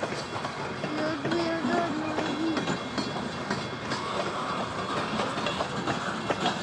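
Freight train cars rolling past close by, a steady rumble and hiss with their wheels clacking over the rail joints.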